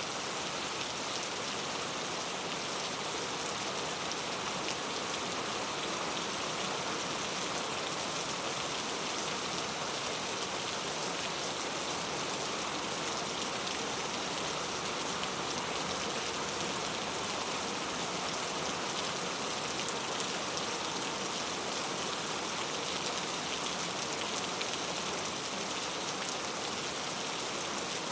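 Steady rain ambience: an even, unbroken hiss of rain falling.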